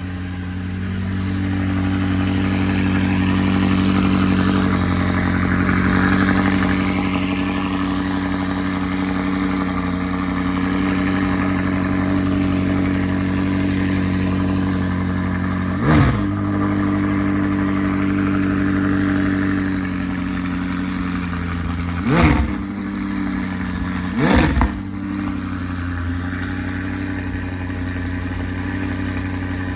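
McLaren 600LT's twin-turbo V8 running at a steady cold-start idle, just fitted with new spark plugs and coil packs to cure a misfire. It is blipped three times: once about halfway through, then twice about two seconds apart near the end.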